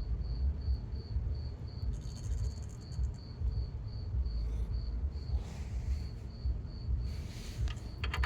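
Insect chirping in an even, steady rhythm, about three chirps a second, over a low rumble.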